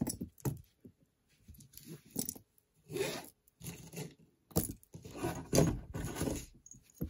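Loose costume jewelry (metal earrings, brooches and pendants) clinking and rattling against each other as a hand rummages through a pile on a table. The clinks come in irregular clusters, the busiest and loudest just past the middle.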